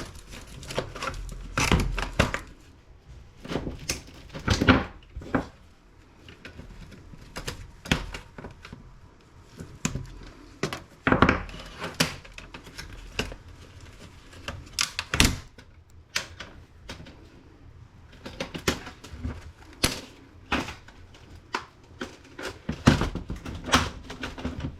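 Irregular clicks, taps and knocks of small plastic and metal laptop parts being handled during disassembly, with several louder knocks scattered throughout.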